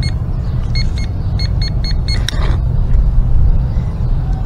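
Handheld metal-detecting pinpointer giving short, same-pitched beeps in quick irregular runs as it is probed over a metal target in the loose soil, over a steady low rumble. One sharp click about two seconds in.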